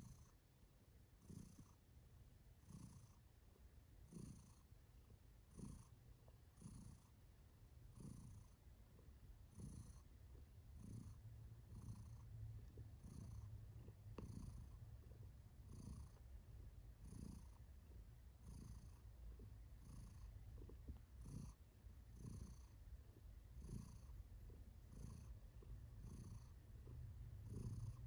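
Domestic tabby cat purring steadily while stroked, a low rumble that swells with each breath about every one and a half seconds.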